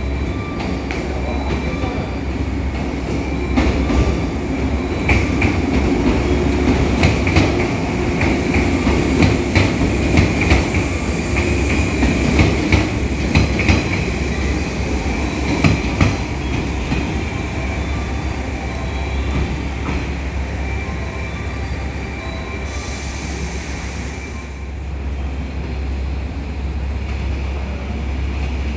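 A train running through a station, its wheels clacking over rail joints in a quick irregular series for several seconds before the clacks die away. A steady rumble and a steady high-pitched tone run underneath.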